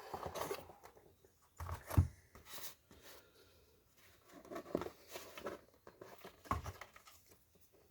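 Handling noise from unboxing a small box of keyboard switches: scattered light rustles and taps of packaging, with a sharp knock about two seconds in.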